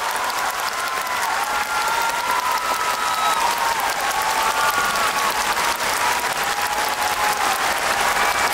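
Large audience applauding steadily, with faint held, wavering tones running beneath the clapping.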